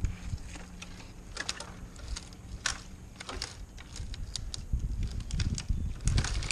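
Scattered light clicks, snaps and rattles of a tree climber's gear and small branches as he shifts position, over an uneven low rumble on the helmet-mounted microphone.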